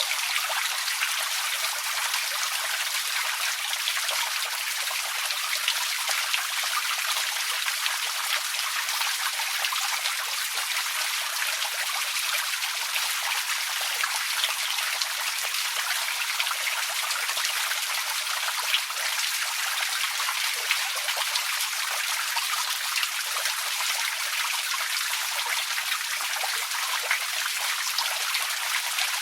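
Outdoor water fountain running: falling water splashing steadily, a constant bright hiss peppered with many small drips and splashes.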